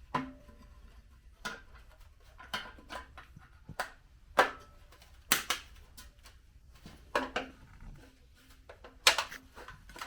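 Irregular light clicks and clinks of small metal parts being handled and fitted, about a dozen short knocks, a few with a brief ring.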